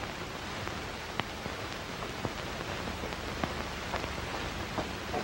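Steady hiss with scattered faint clicks and pops: surface noise of a worn 1930s optical film soundtrack.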